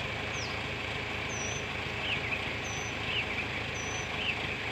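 A tractor engine idling steadily, with small birds chirping and whistling over it, short high calls about once a second.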